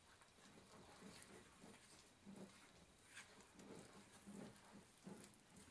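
Faint, soft, uneven stirring sounds of a plastic spoon handle working a shaggy flour-and-water bread dough in a glass bowl, a dull stroke roughly every half second to second, as the wet and dry ingredients are combined.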